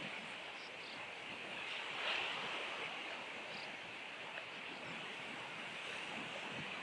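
Steady wash of surf along the shore, with a few faint, brief high chirps from sand martins at their nest burrow.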